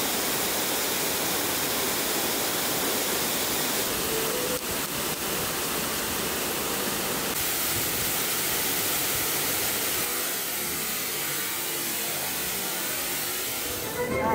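Steady rush of falling water, easing slightly after about ten seconds.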